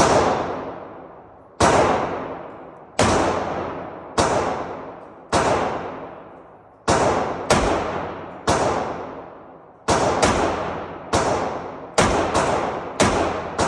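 Snub-nose revolver shots, about fourteen of them, fired singly at uneven intervals, some in quick pairs. Each sharp report is followed by a long echoing decay.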